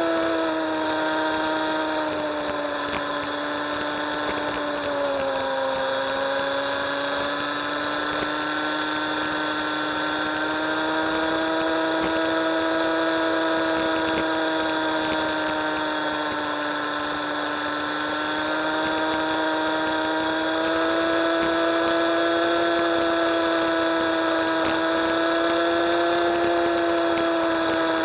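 Steady whine of the small motor driving the vehicle that carries the camera. Its pitch dips about five seconds in, recovers, and rises a little near the end, over a steady hiss of wind and road noise.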